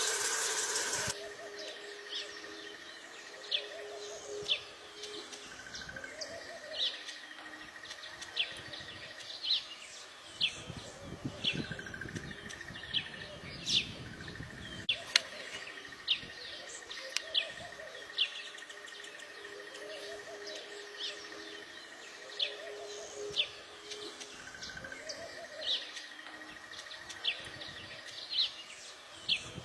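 Birds chirping outdoors, short sharp high calls repeating about once a second over a steady high drone. A second of loud rushing noise comes right at the start.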